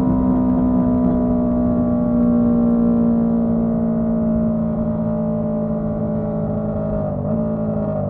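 Honda CB125T motorcycle's parallel-twin engine running at steady cruising revs on the move. The engine note holds level and then drops in pitch about seven seconds in, as the revs fall.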